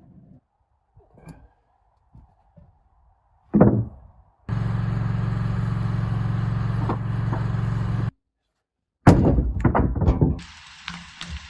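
Sawmill work in short clips: a heavy wooden thunk, then a Wood-Mizer LT15 sawmill running steadily for a few seconds before cutting off abruptly, followed by a quick run of knocks and thuds of handled lumber.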